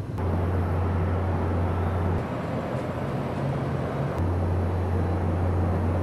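Outdoor field-recording ambience: a steady wash of noise with a low rumble like distant traffic, which drops away for about two seconds mid-way before returning, then cuts off abruptly at the end.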